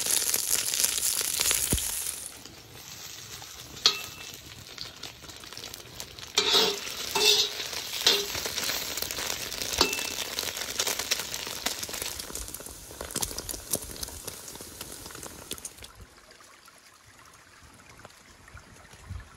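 Cubes of lamb tail fat sizzling in a hot wok as their fat renders out, loudest in the first two seconds, with scattered pops. A metal slotted spoon scrapes and stirs them a few times, and the sizzle drops quieter near the end.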